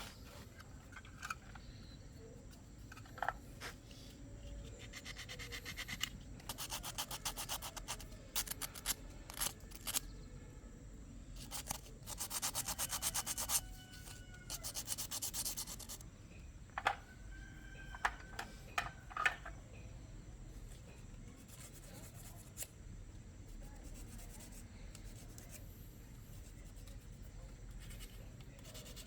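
Repeated bursts of rapid scraping or rubbing, each lasting a second or two, with scattered knocks in between.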